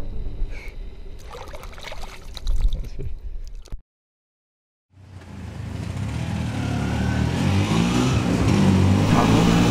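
Music ends in the first second, leaving water splashing and trickling. About four seconds in there is a second of total silence. Then a small motor-scooter taxi engine and street traffic noise fade in and grow louder.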